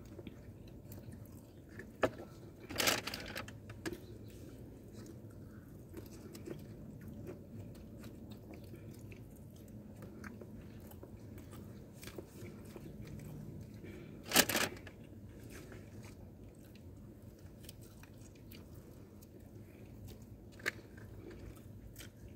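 People chewing pizza close to the microphone, with a few short sharp noises, the loudest about three seconds and fourteen seconds in.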